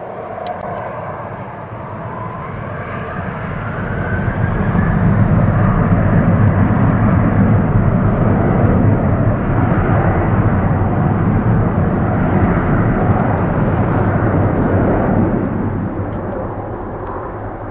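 Jet engines of a Lufthansa MD-11 trijet moving along the ground close by. A whine rises in pitch at the start, then the engine rumble grows louder, holds for about ten seconds and fades.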